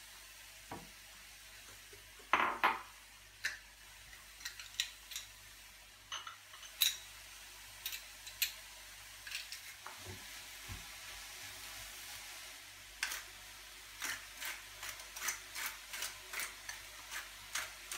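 Kitchen clatter of a wooden spoon scraping and tapping a glass bowl over a frying pan of grated cauliflower, with scattered clicks. Near the end, a salt mill is twisted over the pan in a quick run of grinding clicks. Under it all, a faint sizzle from the pan.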